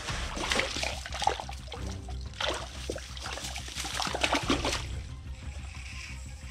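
Hand splashing and sloshing water in an ice-fishing hole, in two bouts of irregular splashes.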